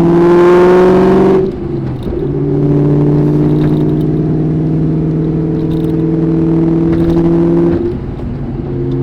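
2003 SVT Cobra's supercharged 4.6-litre V8 running through a catless off-road X-pipe and Borla Stinger exhaust, with a steady exhaust note. The note breaks off briefly about a second and a half in and dips again near the end.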